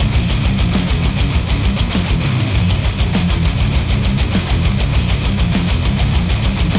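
Heavy rock music with electric guitar and a fast, steady beat, played through headphones and picked up by microphones.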